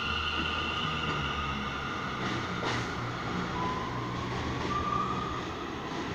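A New York City subway train pulling out of the station and moving away along the elevated track: steady wheel rumble under a high motor whine, with a short tone that rises in pitch about halfway through as it picks up speed.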